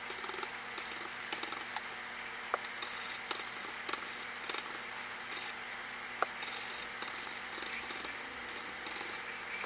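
A paper wipe scrubbed back and forth over the solder side of a circuit board in short, irregular strokes, cleaning off flux residue after soldering, with a few light ticks.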